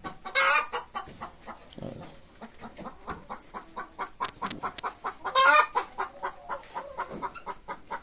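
A flock of laying hens clucking in short, repeated calls, with two louder, higher calls standing out about half a second in and about five and a half seconds in.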